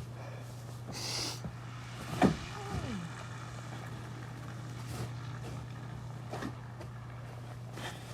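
Snow shovel scraping and a man grunting with effort about two seconds in, his grunt falling in pitch, with a few fainter scrapes after, over a steady low hum.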